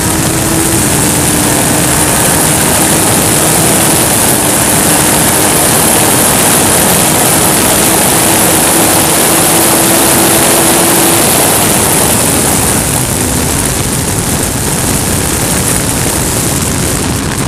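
Race car engine heard onboard, running hard at high revs, with heavy wind and road noise on the microphone. The engine note climbs slowly, then eases off about twelve seconds in as the throttle lifts.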